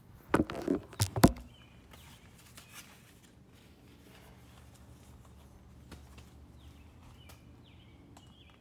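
Several sharp knocks and thumps in the first second or so, like things being handled and set down, then a quiet outdoor background with faint scattered ticks and a few faint high chirps near the end.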